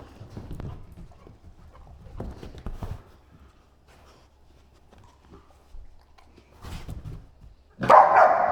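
Dogs scrambling and thudding about on the floor while they play over toys, with a sudden loud burst of sound near the end.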